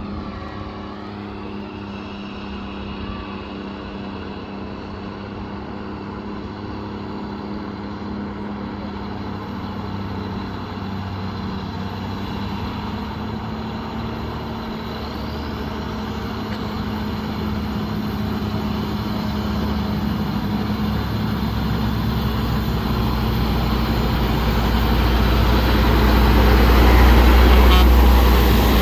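Engines of old vehicles in a slow procession, running steadily and getting gradually louder as one comes close near the end, its deep engine note strongest then.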